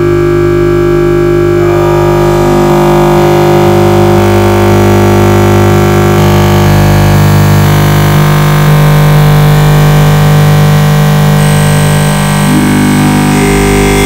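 Loud background music of long held, noisy synthesizer chords that change every few seconds.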